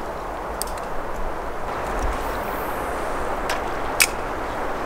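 Steady rush of a mountain creek, with a few light clicks over it and a sharp click about four seconds in.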